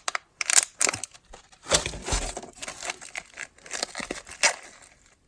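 Packaging crinkling and rustling in short, irregular spells as items are handled and lifted out of a shipping box.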